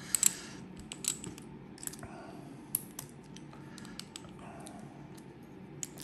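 Light metallic clicks of a disc-detainer lock pick being adjusted and seated in a disc-detainer padlock. A quick cluster of three clicks comes at the start, then single clicks about a second apart.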